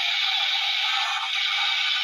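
Henshin transformation sound effect from a custom Kamen Rider belt, playing for the Gokai Phoenix form that was just called: a steady rushing noise, thin and without bass.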